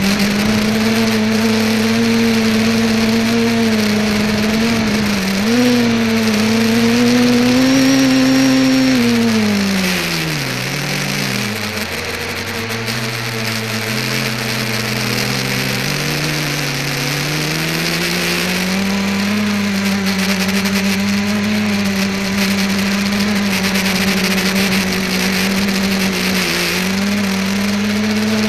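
ETFD2 multicopter's electric motors and propellers humming, recorded by the camera on board, over a steady hiss. The pitch rises slightly about a third of the way in, then drops steeply as the motors slow, and climbs back to a steady hum a few seconds later.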